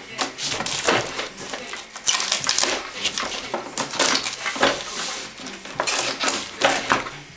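Scissors cutting through packing tape along the edge of a cardboard box, with the cardboard and tape crackling and rustling in irregular short bursts.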